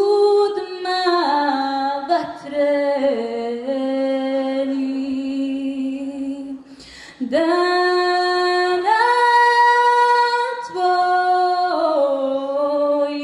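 A young woman singing solo into a microphone, a slow melody in long held notes that step and glide between pitches, with a brief pause for breath about seven seconds in.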